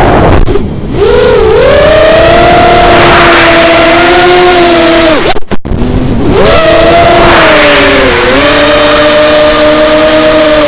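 FPV quadcopter's brushless motors and propellers whining as the throttle changes: several close tones rise and fall together. The pitch dips about half a second in and cuts out almost completely for a moment about halfway through, as the throttle is chopped, before climbing back up.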